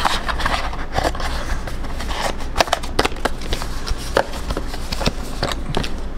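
A small cardboard battery box being handled and its taped flaps opened: irregular clicks, crackles and scrapes of cardboard, over a steady low hum.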